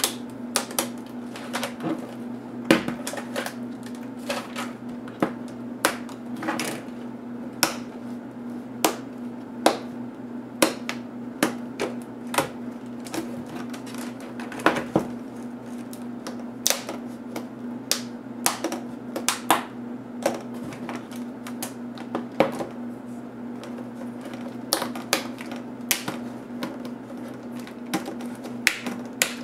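Plastic snap clips of an HP DV3000 laptop's LCD bezel clicking and popping as fingers pry along its edge, with plastic panel parts knocking on the hard work surface. The clicks are sharp and irregular, about one or two a second, over a steady low hum.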